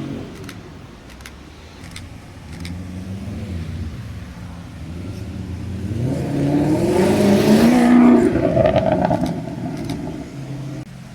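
A sports car's engine accelerating, its pitch rising, growing loud from about six seconds in and loudest around eight seconds before fading; a quieter engine runs before it. The sound drops off suddenly near the end.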